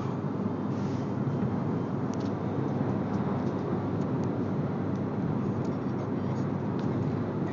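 Steady road and engine noise inside a Fiat car's cabin while it cruises at highway speed, with a few faint clicks.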